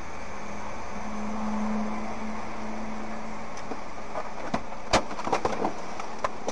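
Steady hum of idling cars heard through a dashcam, with a handful of sharp clicks and knocks in the second half as a car door is handled.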